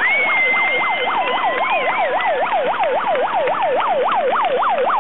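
An electronic yelping siren from the fans, a fast repeating rising sweep about four or five times a second, over crowd noise and clapping. A steady held tone and a short high whistle sound alongside it.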